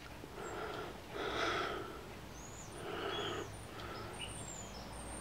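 A person breathing close to the microphone, soft breaths about every second and a half, with faint high, short bird chirps in the background.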